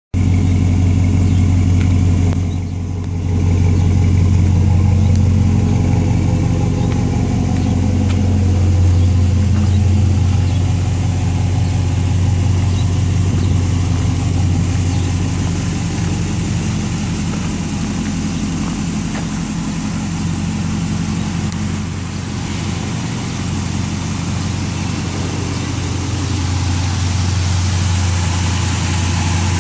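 The 4.7-litre Magnum V8 of a 2003 Dodge Ram idling steadily after a Blue Devil head gasket sealer treatment, which the owner says has it running pretty good. Its loudness dips briefly about three seconds in.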